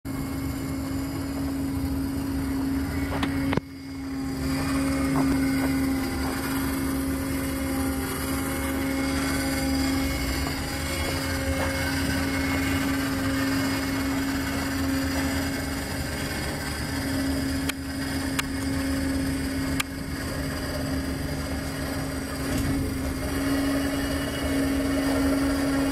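Electric roll tarp's motor running steadily under remote control as the tarp rolls closed over a grain cart, a continuous hum that dips briefly a few seconds in.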